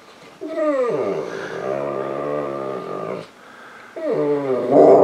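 St. Bernard crying for attention: two long, drawn-out whining moans, each dropping in pitch at the start and then held. The first starts about half a second in and lasts nearly three seconds. The second, louder one starts about four seconds in.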